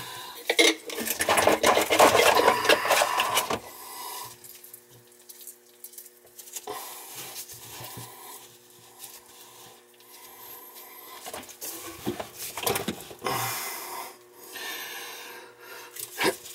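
Gloved hands handling and fitting white PVC sink drain pipes and their plastic slip joints: plastic rubbing and scraping with scattered clicks, loudest for a couple of seconds about a second in and again in a short burst near the end.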